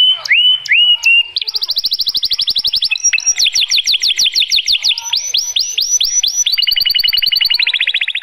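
White male canary singing a long, varied song. It opens with a few curved whistled notes, then runs through fast trills and series of quick falling sweeps, changing pitch every second or two, and ends in a fast steady trill.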